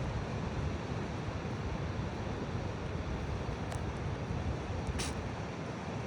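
Wind rumbling on the microphone outdoors, with a brief sharp click about five seconds in.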